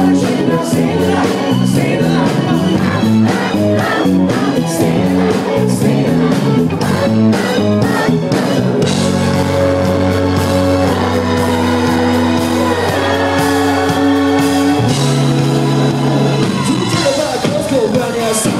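A live rock band playing through the club's PA, with a male lead singer: drums and a moving bass line, then about nine seconds in the drum hits drop out, leaving long held chords under the singing. Crowd noise mixes in.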